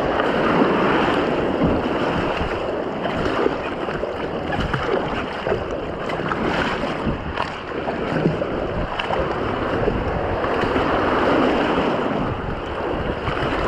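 Fast river water rushing and splashing around a canoe being paddled down a rapid, with irregular paddle splashes and wind on the microphone.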